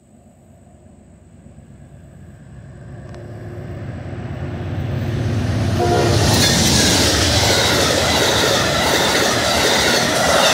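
Amtrak passenger train led by a GE P42DC diesel locomotive approaching and passing at speed. A deep engine drone builds over the first few seconds, then about six seconds in the sound turns into a loud, sustained rush of wheels on rail as the locomotive and coaches go by.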